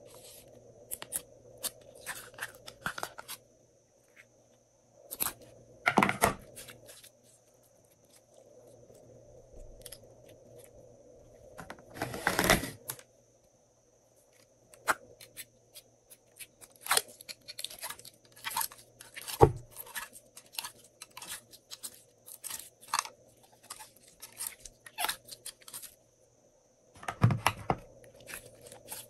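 Glossy slime being peeled out of plastic moulds and squeezed by hand: sticky crackling, clicks and small pops, with longer tearing bursts about six, twelve and twenty-seven seconds in.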